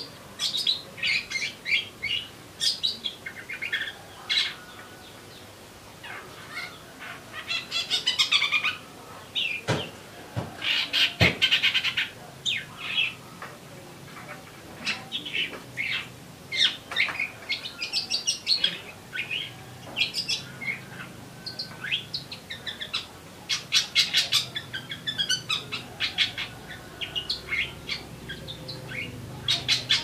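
Caged songbird calling steadily in quick runs of sharp, sparrow-like chirps and short rattling trills. A couple of knocks sound about ten seconds in.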